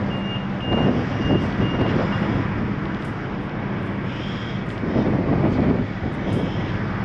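Wind buffeting the microphone on an open ferry deck, over the steady low hum of the ship's machinery. A high electronic beep repeats about twice a second and stops about two seconds in.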